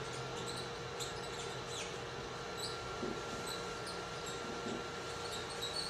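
Room tone: a steady hiss with a faint constant hum and a few soft ticks.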